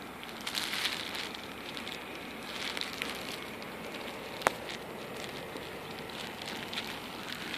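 Crackling, rustling footsteps on dry orchard ground, with a single sharp click about four and a half seconds in.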